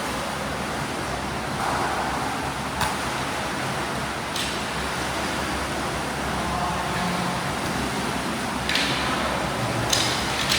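Steady, noisy wash of an indoor swimming pool: water churning and splashing from swimmers doing breaststroke drills, with a few sharp knocks or slaps.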